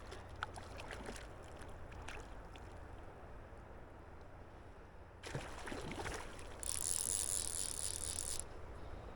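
Water splashing at the river surface as a hooked rainbow trout is played in, over a steady low rumble of river flow and wind. The splashing starts about five seconds in and is loudest for a couple of seconds near the end.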